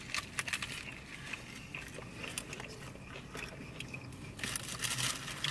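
Close-up crunching and chewing of a bite of a Taco Bell Double Decker taco, its hard shell cracking in a run of sharp crunches that come thicker near the end.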